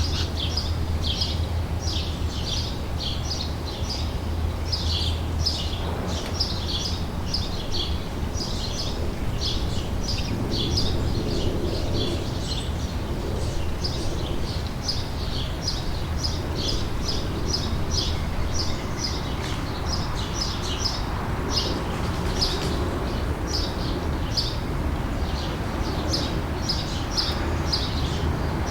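Outdoor summer ambience: birds chirping busily, several short, high chirps a second without pause, over a steady low rumble.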